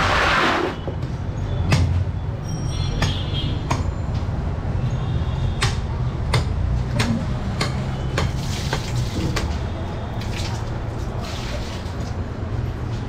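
Large butcher's knife chopping goat meat on a wooden block: sharp, irregular chops about once a second over a steady low hum. A brief rustling rush right at the start.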